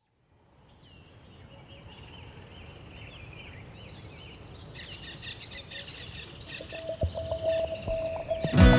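Birds chirping and singing over a low outdoor hum, fading in from silence and growing louder. Near the end a low thump and a held tone lead into acoustic guitar music.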